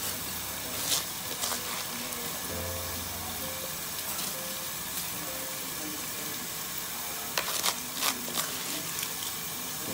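Steady sizzling hiss of cooking on the stove as handfuls of soaked rice are dropped into a pot of boiling coconut water. There are a few short splashes and clatters, one about a second in and a cluster between about seven and eight seconds in.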